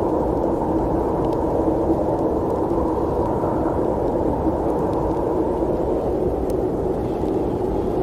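Steady snowstorm wind: a low, even rush of noise with a faint held tone in it and a few faint ticks.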